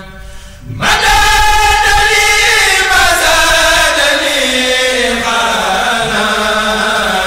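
Arabic religious chanting of a Mouride khassida, with long drawn-out, sliding notes. It dips briefly at the start, then swells back in loud about a second in.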